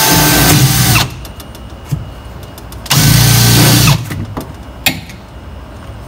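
Cordless drill boring a hole through a fiberglass body panel. It runs until about a second in, then again from about three to four seconds in, with light clicks and knocks between.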